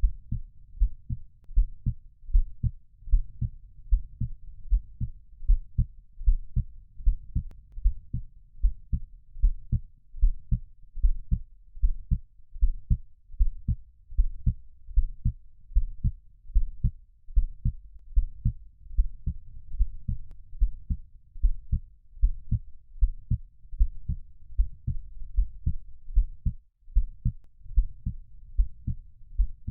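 Heartbeat sound: a steady rhythm of low, deep thumps in lub-dub pairs over a faint low rumble.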